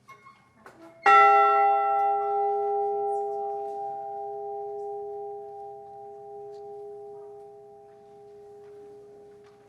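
A large bell, the Edmund Fitzgerald's ship's bell, struck once as a memorial toll for a lost crew member, then left to ring out in a long, slowly fading hum of several tones. A couple of faint knocks come just before the strike.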